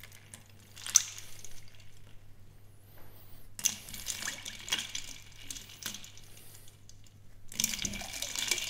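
Metal tongs lifting pieces of seared tuna out of a bowl of ice water: water sloshing and dripping in two spells, with a sharp clink about a second in.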